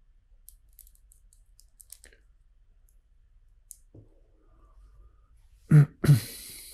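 Plastic LEGO bricks clicking faintly as they are handled and sorted, a few light ticks, then two loud sudden sounds close together near the end, the second trailing off in a short noisy rustle.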